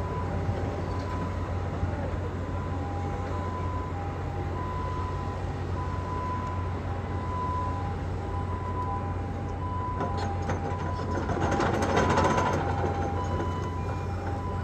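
Steady low machinery hum with a repeating electronic beep that alternates between two notes. A louder rush of noise with clicks swells up about eleven seconds in and fades over the next two seconds.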